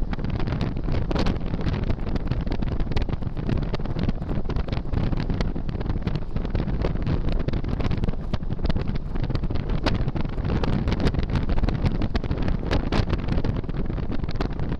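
Motorcycle being ridden at steady road speed: heavy wind buffeting on the bike-mounted camera's microphone, with the engine and road noise running underneath in a dense, gusty rush.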